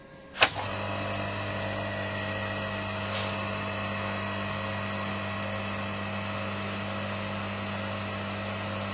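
A sharp click, then the electric motor of a Morso EH mitre guillotine starts and runs with a steady hum; a lighter click comes about three seconds in.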